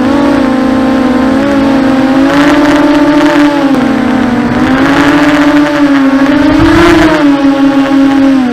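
Electric motors and propellers of a 250-size FPV racing quadcopter whining in flight, the pitch rising and falling with the throttle. Several rushes of noise come and go in the middle stretch.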